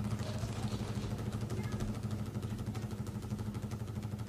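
An engine running steadily, a low even hum with a fast, regular pulse.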